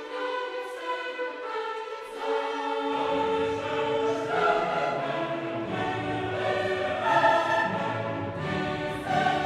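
Background music in a choral, operatic style, with voices over an orchestra. Deeper parts join about three seconds in and the sound grows fuller.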